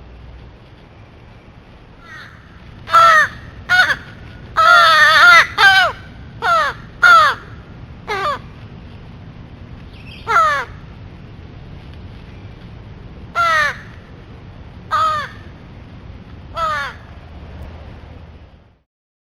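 American crows cawing: a quick run of harsh caws for about five seconds, then single caws every couple of seconds, each call falling in pitch.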